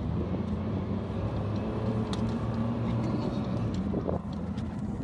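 Car engine running and tyres rolling on the road, heard from inside the cabin as a steady low hum.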